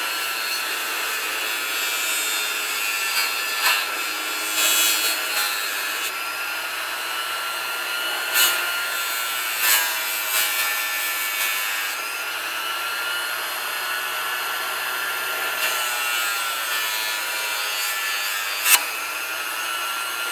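Bench grinder running with a steady whine while a small metal compressor reed valve is held against the wheel, with several brief louder scrapes where the part bites harder. The reed valve is being cleaned up so it will seal.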